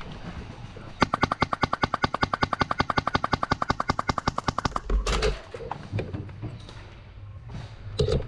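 Airsoft rifle firing one long full-auto burst, a fast, even rattle of shots, starting about a second in and lasting nearly four seconds. A low thump comes just after the burst stops.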